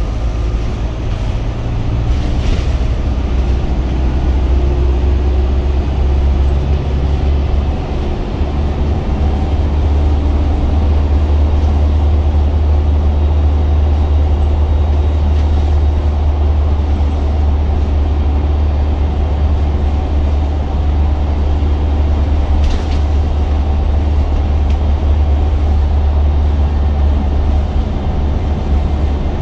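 Wrightbus GB Hawk single-deck bus driving, heard from inside the saloon: a loud, steady low engine drone with road noise, its pitch climbing over the first few seconds as the bus picks up speed. A brief rattle sounds about two seconds in and another later on.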